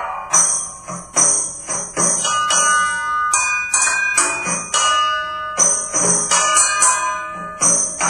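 Percussion played on household objects: a steady rhythm of sharp hits, several ringing on with held pitched tones, under a high sizzling layer that comes and goes.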